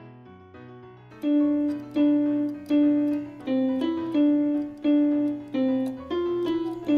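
Yamaha PSR-F51 portable keyboard played with one finger: loud single notes, mostly on the same pitch with a few steps up and down, about one every three-quarters of a second, starting about a second in. Quieter background music with a bass line runs underneath.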